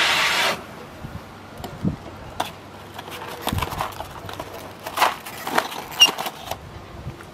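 Aluminium foil packet crinkling and rustling as it is worked off the prongs of a wire roasting fork, with scattered sharp crackles and light clicks. A brief louder hiss of rustling comes right at the start.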